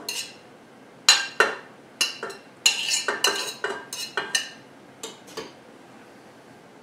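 A metal utensil clinking and scraping against a china plate and a stainless steel mixing bowl as butter is scraped off the plate into the bowl: a run of sharp clinks and short scrapes, the loudest about a second in.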